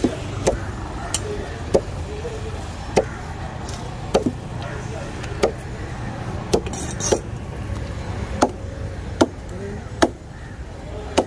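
A large knife chopping through yellowfin tuna and striking a wooden cutting table: sharp, irregular chops about once a second, a dozen or so in all, over a steady low street rumble.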